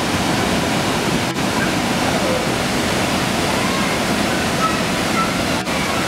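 Waterfall plunging into a rock pool: a steady, loud rush of falling water.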